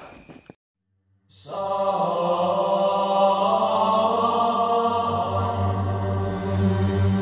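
Slow, chant-like music with sustained choir-like tones over a low steady drone, starting about a second and a half in after a brief silence. Before the silence, a steady high cricket chirring cuts off abruptly.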